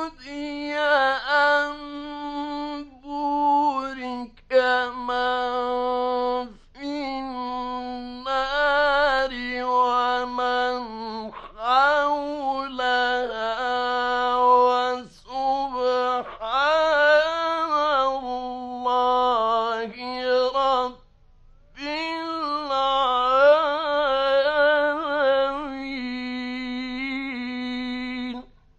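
A male Quran reciter's voice chanting in the melodic mujawwad style. Long held notes with wavering ornaments come in phrases broken by short breaths, with a longer pause about two-thirds of the way through.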